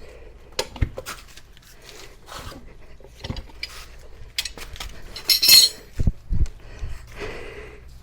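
Metal hand tools clinking and knocking against a motorcycle wheel rim while the tire bead is pried and pushed down off the rim. Scattered sharp clicks are heard throughout, with a louder scrape about five and a half seconds in.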